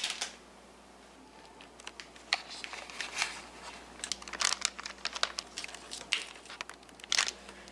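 Plastic food packaging crinkling in short, scattered bursts, starting about two seconds in, as a wrapper is handled and cut open with scissors.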